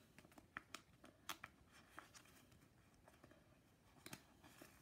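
Faint, scattered crinkles and clicks of a foil Pokémon TCG booster pack wrapper being handled and worked open.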